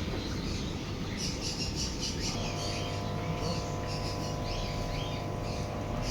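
Birds chirping, many short high calls following one another. A steady hum comes in about two seconds in and carries on under them.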